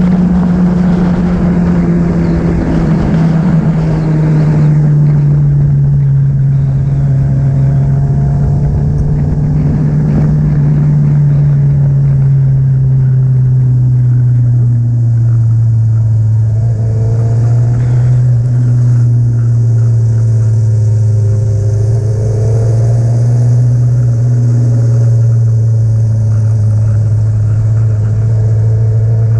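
Motorcycle engine running at a steady cruise, its note sinking slowly over the whole stretch as the revs ease off, with wind noise, heavier in the first few seconds.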